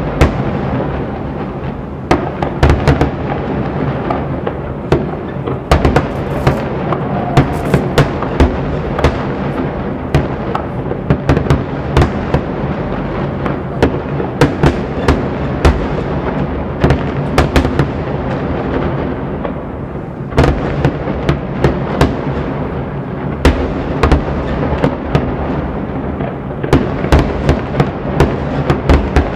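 Aerial firework shells bursting in rapid succession, a dense barrage of sharp bangs over a continuous rumble, with no let-up.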